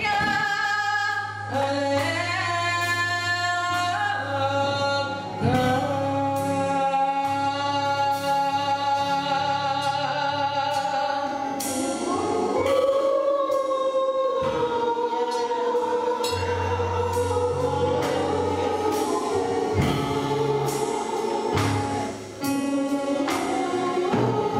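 Gospel choir singing with band accompaniment: sustained held notes over a steady bass line and beat.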